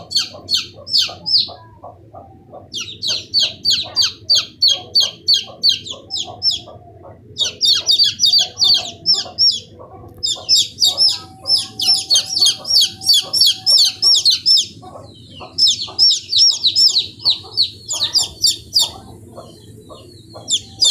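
Baby chick peeping rapidly and shrilly in runs of many calls, with short pauses between the runs. Fainter, lower clucks sound beneath the peeps.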